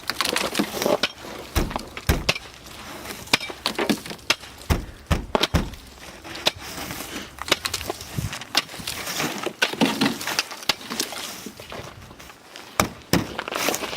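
Ice being hacked and broken up with a hand tool: a long run of sharp, irregular cracking strikes with crunching and splintering between them.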